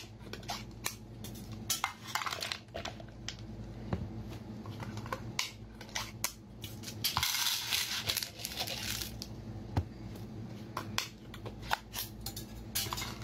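Clear plastic food tubs being handled and opened, giving scattered clicks, taps and crinkles. About seven seconds in comes a rattling clatter lasting about two seconds, as small cooked sea snails in their shells are tipped out onto a plate.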